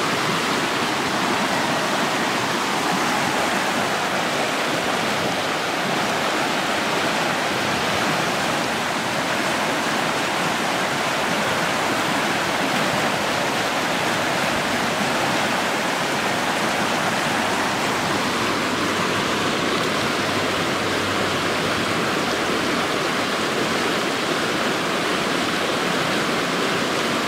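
Rushing water of a swollen stream, running steadily: the creek is carrying much more water than usual.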